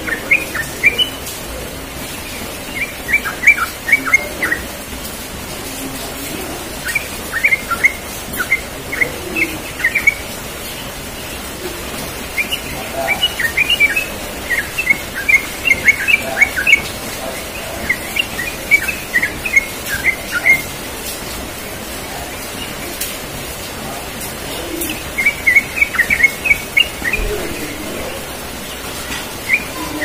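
Yellow-vented bulbul singing in short, bubbly phrases of quick chirping notes. A phrase comes every few seconds, with pauses in between.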